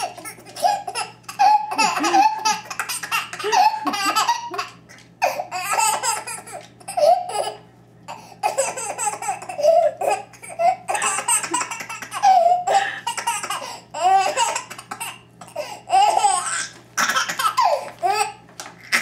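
Ten-month-old baby laughing over and over in short bouts.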